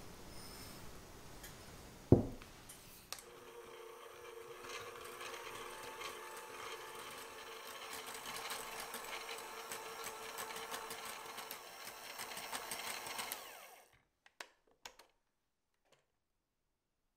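Wire balloon whisk beating heavy cream with sugar in a glass bowl: fast, steady scraping and ticking of the wires against the glass, starting about three seconds in and stopping a few seconds before the end, followed by a few light clicks. A single sharp knock about two seconds in is the loudest sound.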